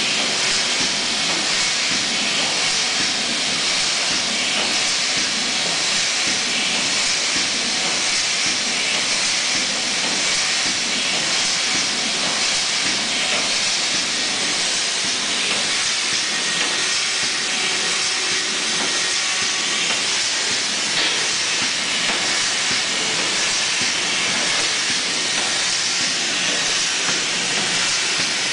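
Steady hiss like rushing air, with no clear rhythm or separate clacks, from a running Freemantle semi-automatic sleeving machine.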